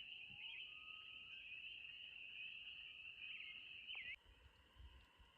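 Distant chorus of spring peepers: a dense, steady high-pitched peeping. It drops away abruptly about four seconds in, leaving a fainter chorus.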